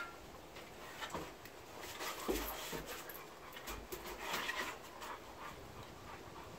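A dog panting, with a few small scuffs and knocks.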